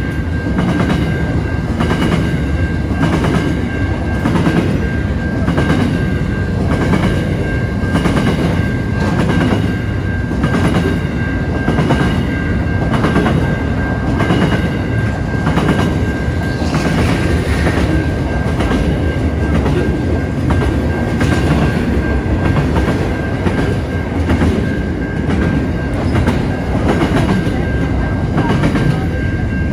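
Freight train container wagons rolling past close by: a steady heavy rumble of wheels on rail, with a regular clickety-clack of wheels over the rail joints about once a second and a thin steady high tone running underneath.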